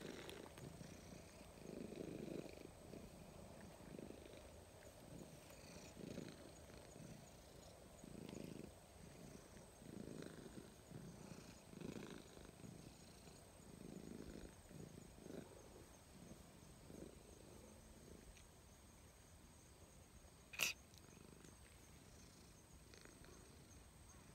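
Domestic cat purring faintly as it is stroked, in low pulses every second or two that fade after about seventeen seconds. One sharp click about twenty seconds in.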